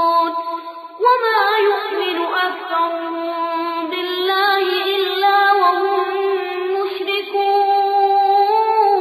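Quran recitation: a single high-pitched voice chanting in long, drawn-out melodic phrases, with a short break for breath just before a second in.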